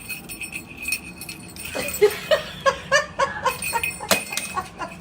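A run of short, rhythmic 'ha-ha-ha' laughing sounds starting about two seconds in, after faint jingling like a small bell, with a sharp click near the end.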